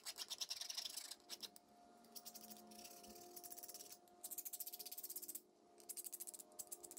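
Hand file rasping along the edge of a thin metal strip in quick short strokes. It comes in three bursts: one at the start, one about four seconds in, and one near the end.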